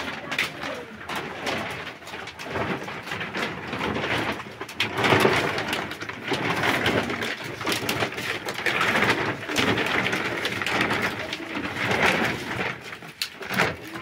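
Large plastic sheet crackling and flapping in gusty wind as it is handled, in uneven surges with wind buffeting.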